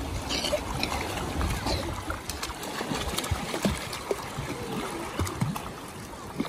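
Shallow sea water splashing and sloshing as children kick and paddle through it, over the steady wash of small waves.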